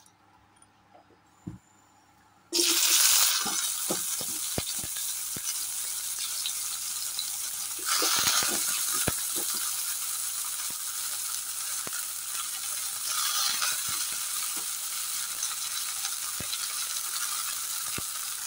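Turmeric-soaked mushrooms going into hot mustard oil in a kadai after about two and a half seconds of near quiet: a sudden loud sizzle that carries on steadily, swelling twice, with light clicks of the stirring spoon against the pan.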